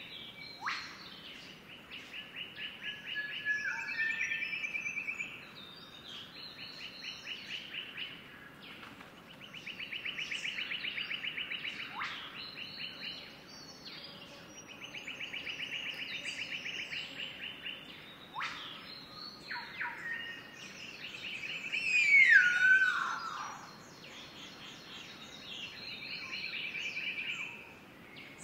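Wild birds singing: a rapid trill repeated every five or six seconds, many short sharp calls in between, and one louder call sliding downward about two-thirds of the way through.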